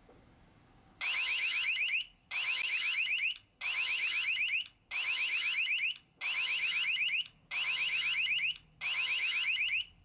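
Built-in siren of a Maximus Answer Dual Cam video doorbell sounding its alarm: seven pulses of about a second each, every pulse a fast rising electronic chirp repeated several times, starting about a second in.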